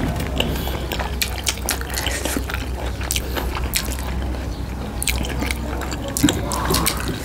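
Close-up wet chewing and mouth-smacking while eating juicy pork momos, made of many short irregular clicks and squelches.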